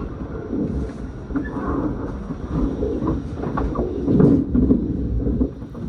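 Electric commuter train running, heard from inside the carriage: a steady low rumble of wheels on the rails with irregular rattles and knocks, loudest about four seconds in.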